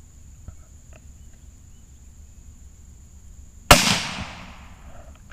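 A single shot from a .17 HM2 rimfire squirrel rifle, about three and a half seconds in: one sharp crack with a short echo that dies away over about a second.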